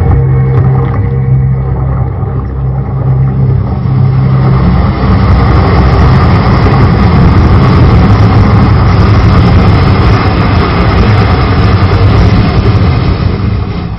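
Loud soundtrack of a projection-mapping light show played over loudspeakers: a deep steady rumble that swells about four seconds in into a louder rushing, engine-like noise, then begins to fade near the end.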